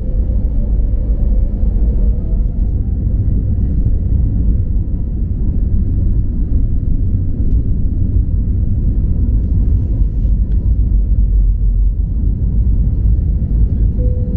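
Airbus A321neo takeoff heard from inside the cabin: a loud, steady deep rumble of the engines at takeoff power as the jet rolls down the runway and lifts off.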